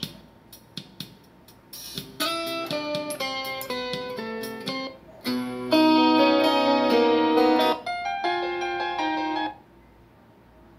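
Guitar music played through a Bluedio BS-3 Bluetooth speaker as tracks are skipped on the phone. The song cuts off at the start, a new piece starts about two seconds in, another louder one about five seconds in, and the music stops near the end.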